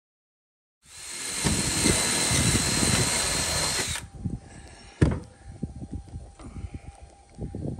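A power drill runs steadily for about three seconds, then stops abruptly, as it drills screw holes through the aluminum gutter. Light handling clatter and one sharp click follow.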